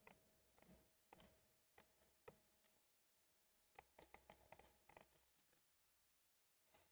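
Near silence: room tone with a few faint clicks of a computer mouse and keyboard, most of them in a cluster around four seconds in.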